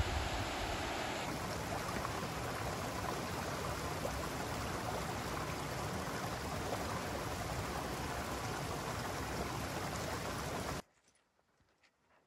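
Steady rushing of a mountain stream cascading over rocks. It cuts off suddenly near the end, leaving near silence with a few faint ticks.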